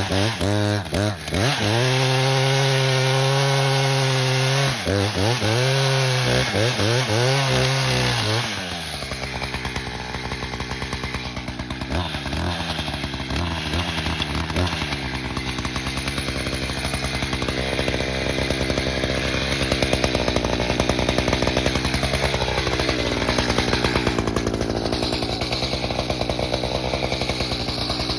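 Chainsaw running at high revs with a few brief throttle dips for about the first nine seconds, then dropping to a lower, steadier engine note that grows somewhat louder toward the end.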